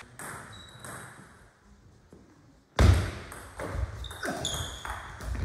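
Table tennis rally: after a quiet pause, sharp clicks of the ball off the bats and the table begin about three seconds in, coming every half second or so, with brief high squeaks of shoes on the hall floor.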